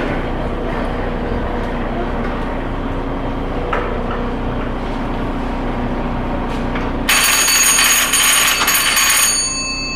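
Steady hum on a steamship's bridge; about seven seconds in, an engine order telegraph's bell rings loudly for a couple of seconds, its high metallic tones dying away near the end.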